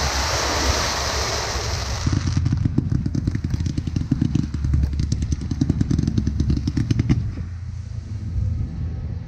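Fireworks crackling in a rapid, irregular run of sharp pops over a low rumble, after a loud hiss in the first two seconds; the crackling thins out after about seven seconds.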